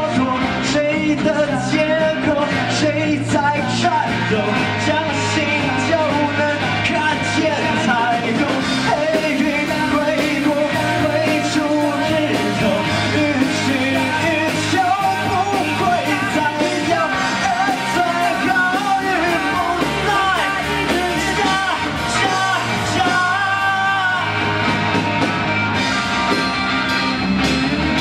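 Live rock band playing: drums, bass and electric guitar, with a sung vocal line wavering over the top.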